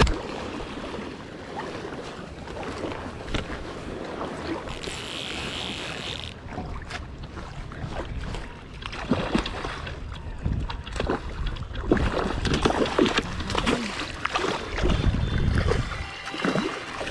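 River water rushing and lapping around an angler wading in the current, with scattered splashes, knocks and clicks of gear.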